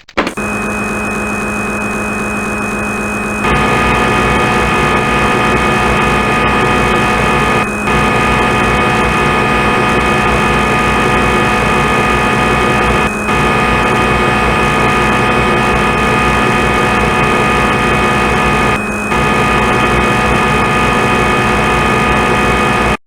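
Simulated lathe machining sound from CNC simulator software: a steady, loud machine hum made of several held tones. It grows louder and fuller about three and a half seconds in and drops out briefly three times, about every five to six seconds.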